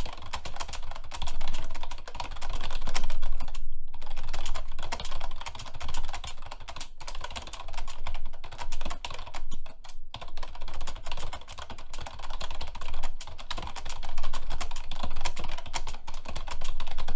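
Fast, hard typing on a computer keyboard: a rapid, continuous clatter of keystrokes during a timed typing test, with only brief pauses of a fraction of a second.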